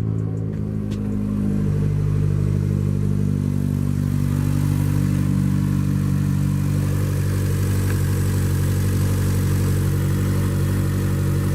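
2015 Chevy Cruze engine idling steadily, with a hiss of air being drawn in at the valve cover. A failed PCV valve is letting the engine suck in air, a vacuum leak that gives it a rough idle.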